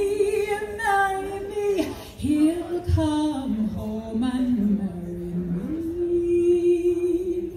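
A woman singing a slow folk ballad unaccompanied, in long held notes: the melody dips lower in the middle, then rises back to one long held note that stops at the very end.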